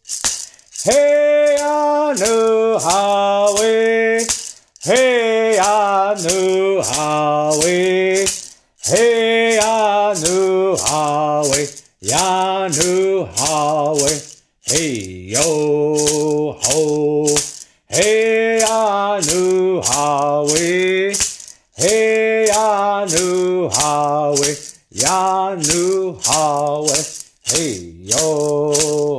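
A man singing an Eastern Band Cherokee Friendship Dance song in sustained phrases with short breaks between them, over a hand rattle shaken in a steady, even beat.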